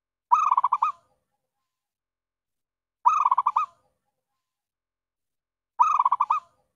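Zebra dove (perkutut) cooing, the clear call used as a lure to draw wild zebra doves. Three calls about every 2.7 seconds, each a quick run of short coos lasting under a second.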